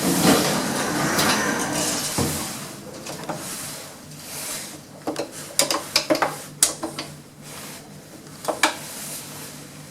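Lift doors sliding, followed by a run of sharp clicks and knocks over a steady low hum.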